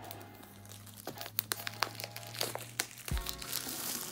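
Plastic shrink-wrap being crinkled and peeled off a product box, with many sharp crackles and a rustling tear in the second half, over background music. A low thump about three seconds in.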